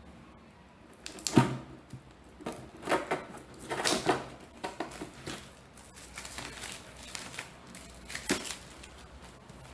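A book's wrapping being torn and crinkled open by hand, in several bursts of crackling, the sharpest about a second in and one more near the end.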